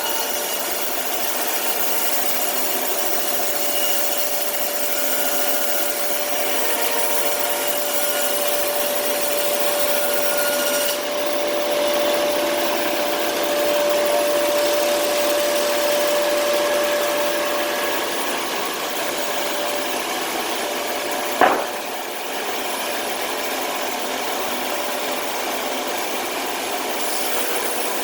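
OX SB-800 sawmill sawing through timber: a steady running noise with a faint held whine, and a single sharp knock about two-thirds of the way through.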